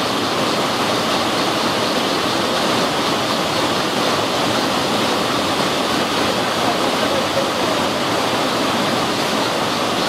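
Rocky stream cascading over boulders in small falls: a steady, unbroken rush of water.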